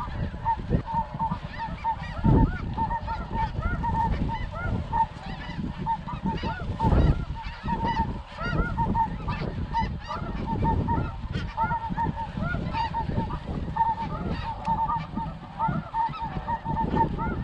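Snow geese calling: many short, high-pitched honks overlapping in a continuous chorus, with low rumbling noise underneath.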